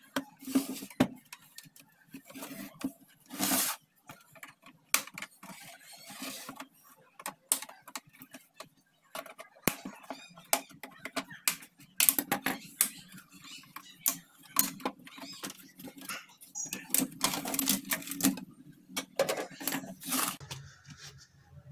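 Plastic cabinet of a Dell LED monitor being prised apart by hand: a long run of irregular clicks, snaps and scrapes as the bezel's clips let go and the plastic shell is handled.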